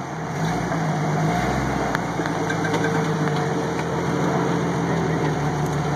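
Jeep Cherokee XJ engine running at low, steady revs as the Jeep crawls over rocks, with a little extra low rumble in the first couple of seconds.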